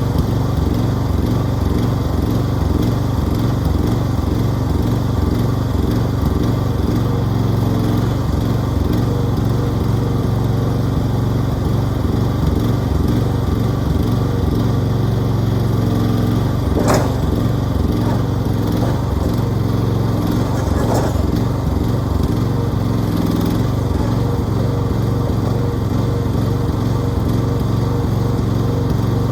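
Mini excavator's engine running steadily, with two sharp knocks a little past the middle, about four seconds apart.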